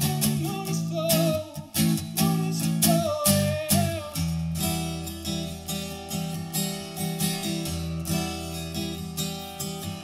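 Acoustic guitar strummed with a man's voice singing a long, wavering held note over it. About four seconds in the voice stops and the guitar carries on alone with steady, even strumming.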